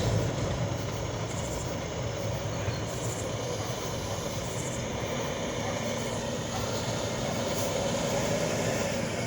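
Freight train running past, a steady rumble and rolling rail noise with no clear beat.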